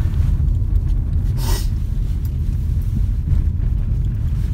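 Steady low rumble of a car driving on a snow-covered road, heard from inside the cabin, with a brief swish about one and a half seconds in.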